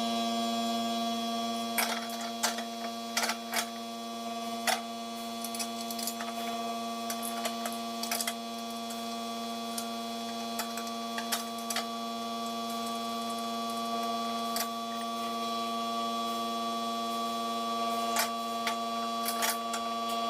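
A steady electrical hum throughout, with scattered clicks and knocks of parts and tools being handled while a snow blower is assembled.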